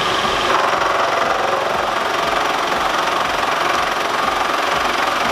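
Vertical milling machine running, its end mill cutting down the rocker pedestal bosses on an aluminum cylinder head with a steady, rough cutting noise. The tone brightens about half a second in.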